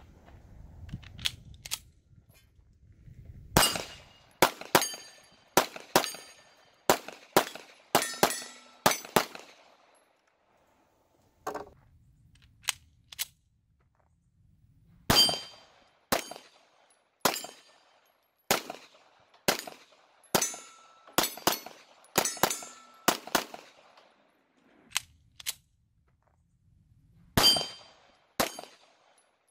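Smith & Wesson M&P 2.0 Subcompact pistol firing in quick strings, about two shots a second, with a pause of a few seconds between strings. Each shot is a sharp crack with a short ring after it.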